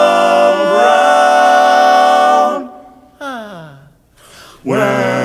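Barbershop quartet singing a cappella, holding a close-harmony chord for about two and a half seconds before cutting off. A single voice then slides down in pitch, and after a brief pause the full chord comes back in near the end.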